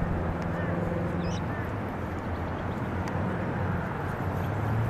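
Steady outdoor background noise with a low hum that grows louder and rises slightly in pitch near the end, and a short high chirp about a second in.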